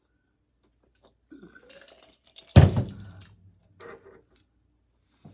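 A person belches loudly once, about two and a half seconds in: a sudden, low burp lasting under a second, with softer voice sounds before and after it.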